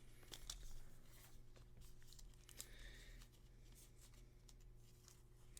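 Near silence, with faint rustling and light taps of trading cards being handled and sorted.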